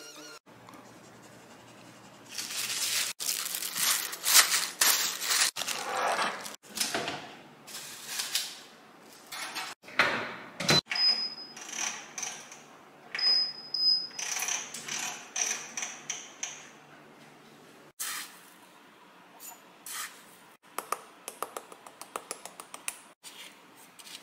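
Kitchen handling sounds with a sharp knock, then short high beeps from a countertop oven's control panel as its dial is turned and set. Near the end comes a run of quick light clicks.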